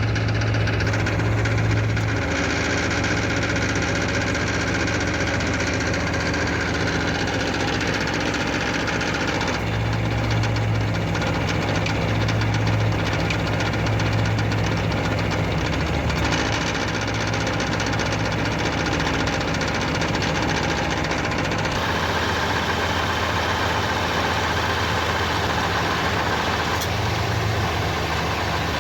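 1989 Pontiac Firebird's 5.0 L 305 V8 idling with a rattling noise, which the owner traces to the flexplate area. The sound changes character a few times along the way.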